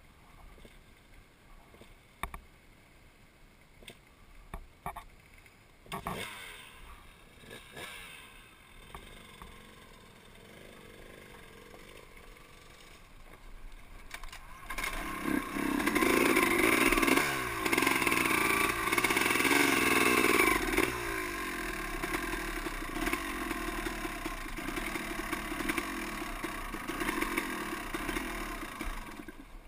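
Dirt bike engine: quiet for the first half with a few knocks and clatters, then about halfway through it revs up loudly, its pitch rising and falling, and keeps running as the bike rides down a rough trail.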